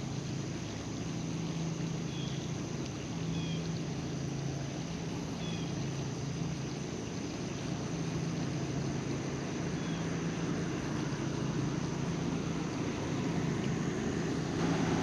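A steady low engine hum that swells and fades slightly, with a few faint high chirps, like small birds, in the first ten seconds.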